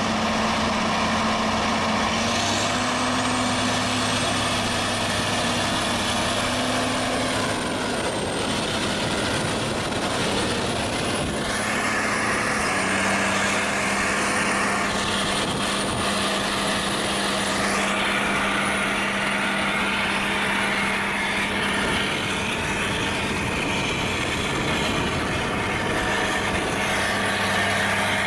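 John Deere articulated four-wheel-drive tractor's diesel engine running steadily as it pulls a planter, with a faint high whine above it. The engine's pitch drops slightly about 13 seconds in.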